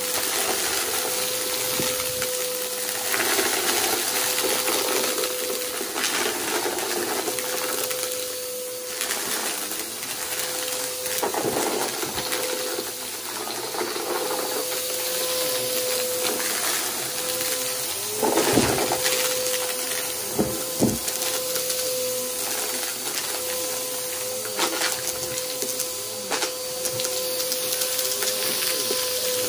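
Aeroswift vacuum cleaner running with a steady motor whine, crackling and rattling as it sucks up crunchy debris. The whine briefly breaks off about two-thirds of the way through, during a louder burst of crunching.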